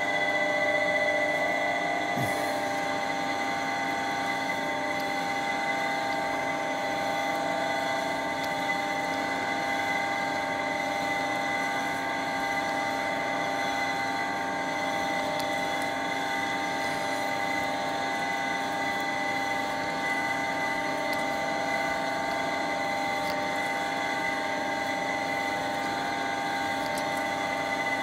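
Milling machine running steadily: a constant hum holding several fixed tones that do not change.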